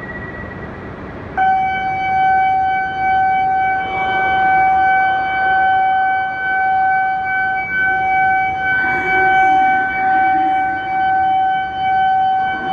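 Station departure bell on a Shinkansen platform: one steady electronic ringing tone that starts abruptly about a second and a half in and holds on, warning that the train's doors are about to close.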